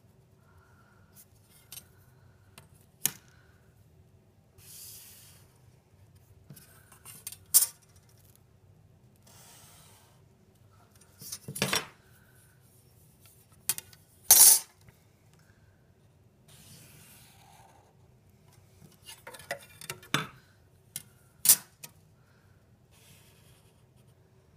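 A metal ruler being set down and shifted on a tabletop, giving a handful of sharp clinks and taps spread over the stretch, with soft scratchy strokes of a permanent marker drawn along its edge in between.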